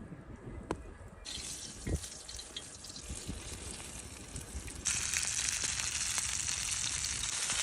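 Steady rushing, hissing water noise. It comes in about a second in, then jumps sharply louder about five seconds in and holds steady.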